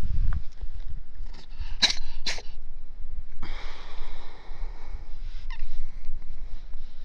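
Calico cat sneezing twice in quick succession, about two seconds in.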